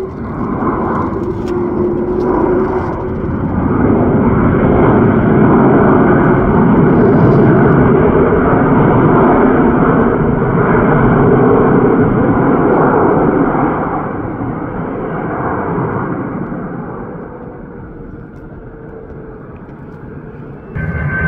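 Jet airliner on landing approach passing over, its engine noise building over the first few seconds, staying loud for about ten seconds, then fading away.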